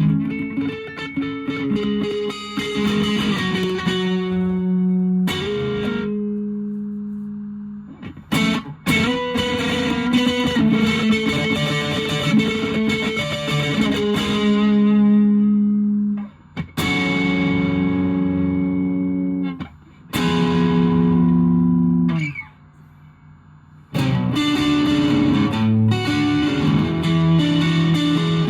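Electric guitar (a Fender Japan Jazzmaster) played through a 1985 Japanese Boss DS-1 distortion pedal into an ELK FSB-45 amp, recorded raw through a phone's microphone. The playing is sustained distorted chords and riffs, some held to ring out. Several are cut off abruptly, leaving brief pauses.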